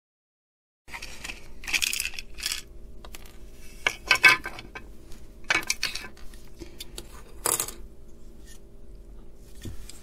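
Hard plastic clicking and rattling as the case of a plug-in remote-control mains socket is handled and taken apart, its circuit board and plug pins lifted out. Scattered sharp clicks and knocks start about a second in, the loudest cluster around the middle.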